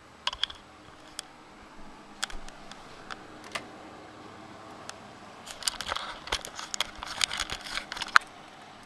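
Handling noise: scattered sharp clicks and knocks, coming thick and fast in the second half.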